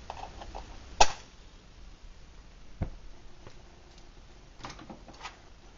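A sharp click about a second in and a smaller one near three seconds, with faint handling knocks and scrapes, while a homemade denatured-alcohol can stove is being lit.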